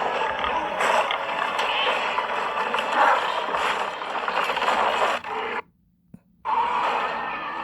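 Made-up wild boar sound effect: a harsh, rasping call about five and a half seconds long, then a short break and a second rasping call starting near the end.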